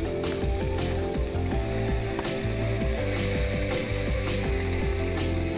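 Whole European plaice sizzling as they are laid on hot grill grates, with a steady hiss and short clicks of metal tongs against the grates. Background music with held notes and a bass line plays underneath.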